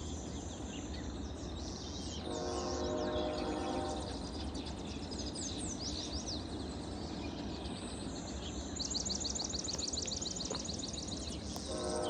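Songbirds chirping and singing, with a fast, even trill lasting about two seconds near the end, over a low steady rumble of wind or distant noise. A sustained tone made of several pitches, like a distant horn, sounds for under two seconds a couple of seconds in and again right at the end.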